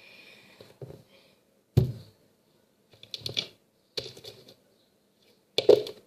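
Homemade glue-and-borax slime being squeezed and pressed by hand, making a handful of separate wet clicks and pops.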